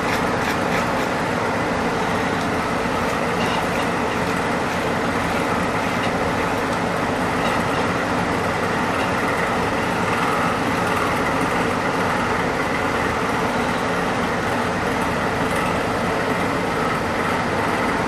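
Steady whir of an electric blower running without a break, with faint scratches of a brush working through wet dog hair now and then.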